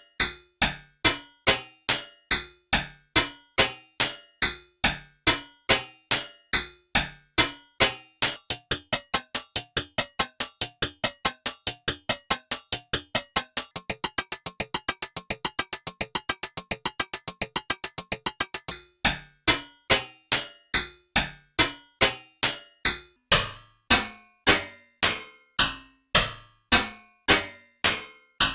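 Synthesized metallic impact sound effect, ringing like a struck steel plate, repeated at about two hits a second. About a third of the way in the hits speed up into a fast roll, then about two-thirds of the way in drop back abruptly to slower single hits.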